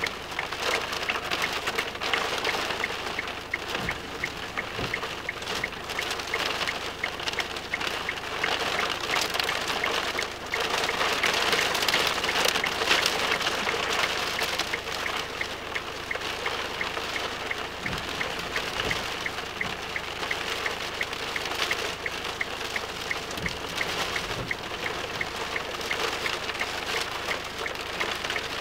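Rain hitting a car's windscreen, heard from inside the car: a dense steady hiss made of many separate drop hits.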